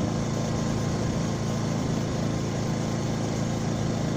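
A steady, low engine hum that runs unchanged, like an engine at idle.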